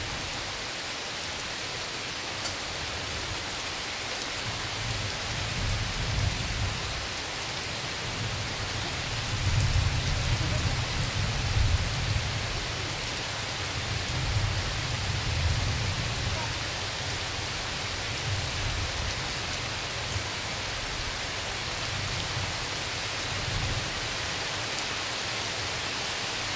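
Heavy tropical rain pouring steadily, with a long low rumble of thunder rolling in a few seconds in, loudest around ten seconds in, and dying away near the end.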